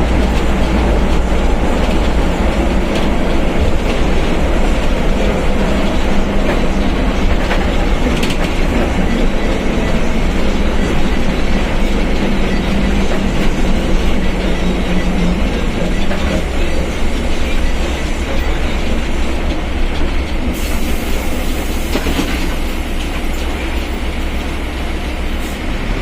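Mercedes-Benz OF1721 BlueTec 5 bus under way, heard from on board: the diesel engine runs with road noise and body rattle, and the differential hums loudly, the sign of a worn, noisy differential. A steady low tone fades out about two-thirds of the way through, and a high hiss comes in near the end.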